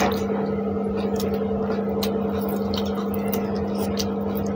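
A steady low hum with a noisy hiss under it. Over it come scattered small wet clicks of eating by hand: chewing and lip smacks over mouthfuls of rice and chicken.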